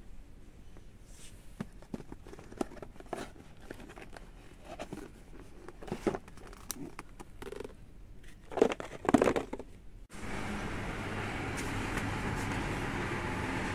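Light rustling and crinkling with scattered small clicks and knocks, as of packaging being handled, growing louder for a moment near 9 s. About 10 s in it cuts abruptly to a steady background noise.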